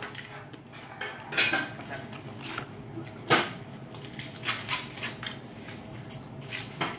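Tableware and lobster shells being handled at a meal: several separate sharp clicks and clinks, the loudest about three seconds in.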